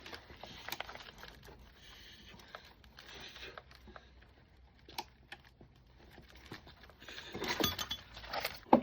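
Metal hand tools being handled: scattered light clicks and clinks, then a busier clatter of metal near the end.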